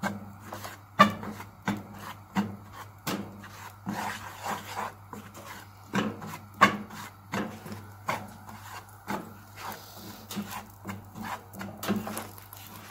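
A spoon stirring and scraping dry flour around a frying pan as it is dry-roasted: a steady rhythm of gritty scraping strokes with light knocks on the pan, about three every two seconds.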